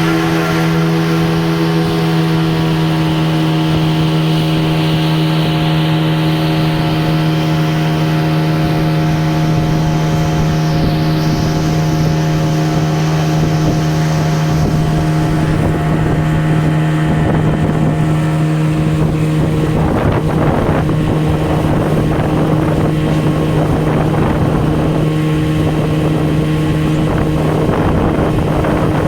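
Tour boat's engine running steadily under way, a constant hum with a firm low tone, with wind noise on the microphone growing rougher in the second half.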